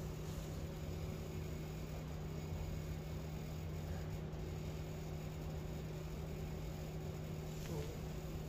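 Steady low hum with a constant tone over faint hiss, unchanging throughout.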